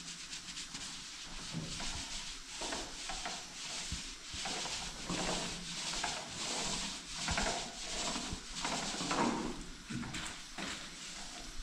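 Paintbrush stroking paint onto a plastered wall: a repeated rough rubbing swish, stroke after stroke.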